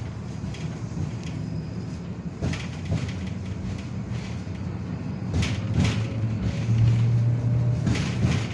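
KTM tram heard from inside the car as it moves off: a steady low running hum with occasional short knocks and clatter. The hum swells noticeably about two thirds of the way in.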